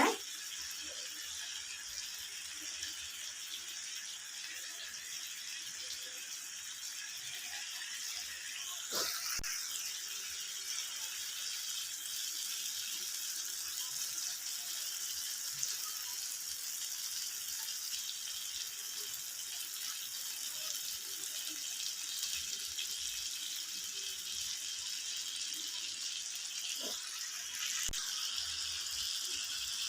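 Skewered chicken tikka and capsicum sizzling steadily in a little oil in a frying pan over medium heat, with a faint knock about nine seconds in and again near the end.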